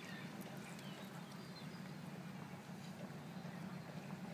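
Faint, steady low hum of a boat's engine, with a few faint high chirps and ticks over it.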